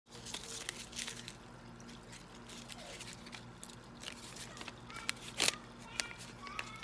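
Faint handling noises of a small plastic device: scattered clicks and knocks, the loudest sharp one about five and a half seconds in, over a steady low hum. A few short, faint high chirps come in the second half.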